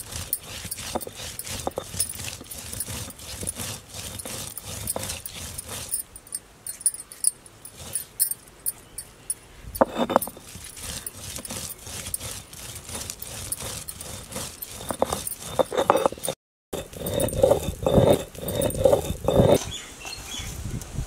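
Stone roller of an ammikkal, a flat Indian grinding stone, rolled back and forth over dried red chillies and spice seeds, crushing them with a steady run of gritty clicks and scrapes of stone on stone. Near the end comes a run of louder, lower knocks.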